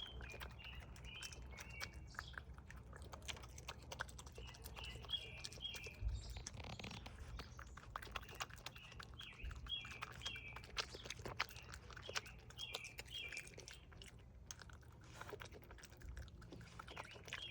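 Raccoon chewing and crunching food, a steady run of small crunches. Small birds chirp in short repeated phrases of a few notes every few seconds.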